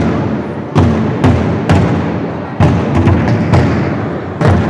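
Lion dance drumming: a steady run of heavy drumbeats, punctuated by about seven sharp, ringing accents spaced unevenly half a second to a second apart.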